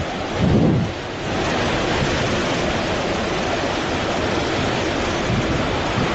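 Hurricane-force wind blowing steadily, with a low buffeting gust on the microphone about half a second in.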